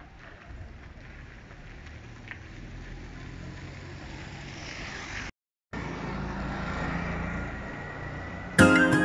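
A motor vehicle's engine grows steadily louder for about five seconds, then breaks off suddenly. A three-wheeled motorcycle taxi then comes along the road, its small engine running steadily, and music comes in at the very end.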